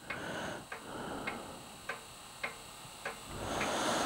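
Steady ticking, just under two ticks a second, with a soft rushing noise that swells near the end.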